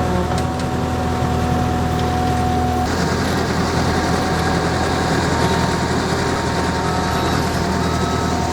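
Perkins diesel engine of an ASV PT100 compact track loader running steadily, with a steady whine above it that shifts pitch about three seconds in.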